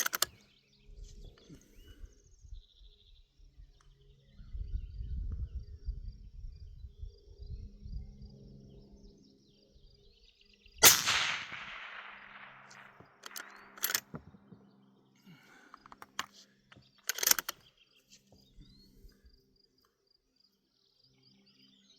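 Barrett MRAD rifle firing a single shot about eleven seconds in, the report rolling away over several seconds, preceded by a low rumble of wind on the microphone. Two short sharp cracks follow, about three and six seconds after the shot, with faint birdsong in the background.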